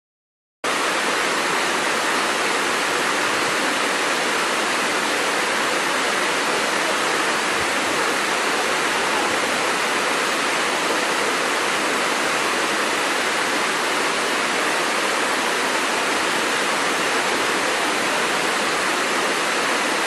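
Waterfall cascading over rocks: a steady rushing of falling water, starting abruptly about half a second in.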